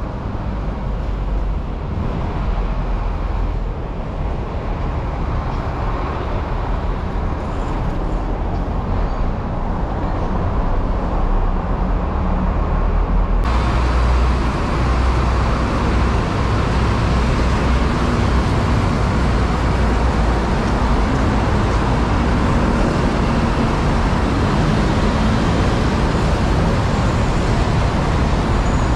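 Road traffic: a steady low rumble of engines and tyres, echoing under a concrete flyover. About halfway through it turns suddenly louder and fuller as vehicles pass close by.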